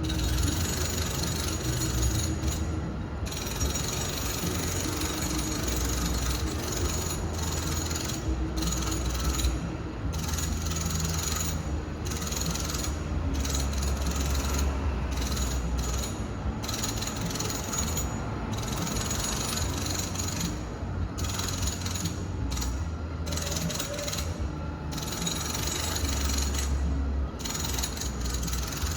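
Renovation noise from a distant room in a home: a continuous mechanical din of working tools over a low hum. The higher-pitched part cuts out briefly many times.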